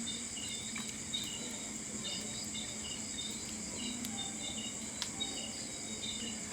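Insects chirping in a steady high-pitched chorus, with short chirps repeating over it and a few faint clicks.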